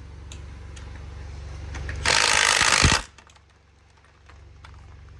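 Impact wrench running one bolt of a beadlock ring in a single burst of under a second, near the middle, ending as the trigger is released. A steady low hum runs underneath.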